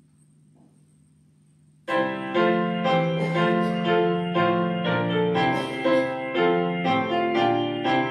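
A faint low hum, then about two seconds in a piano starts playing a hymn tune in chords, note by note at a steady hymn pace.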